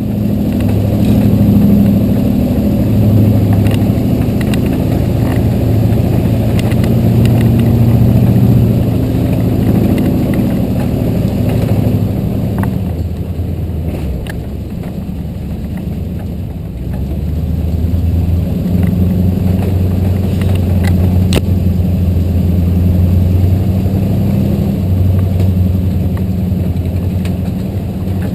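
A 4x4 wrecker's engine running under load as it drives along a rough trail, towing a truck. It is strongest over the first ten seconds, eases off for a few seconds past the middle, then pulls again, with a few faint knocks.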